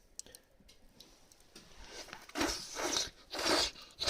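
A person slurping hot udon noodles from a hotpot: a few short, noisy slurps close together in the second half.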